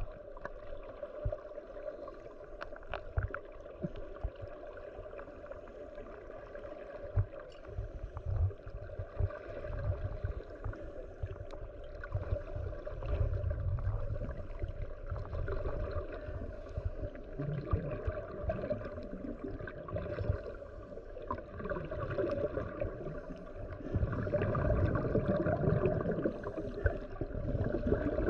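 Muffled underwater sound heard through a waterproof camera housing: water rushing and gurgling with scuba exhaust bubbles and scattered clicks. It swells louder near the end.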